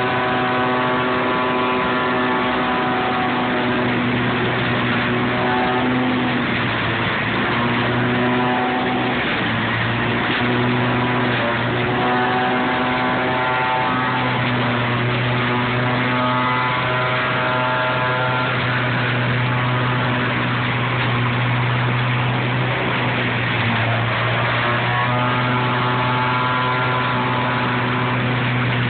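Large vehicle-mounted leaf vacuum running steadily at high power, sucking leaves through its wide intake hose: a loud, even engine-and-fan noise with a constant low hum and a higher whine that fades in and out every few seconds.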